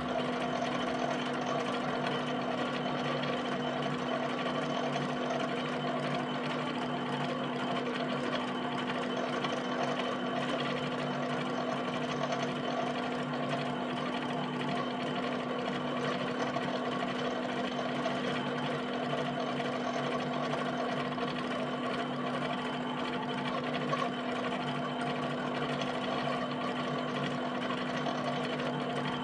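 HP 7585B pen plotter drawing a field of small dots: its pen and carriage drive make a rapid, steady mechanical chatter over a constant hum.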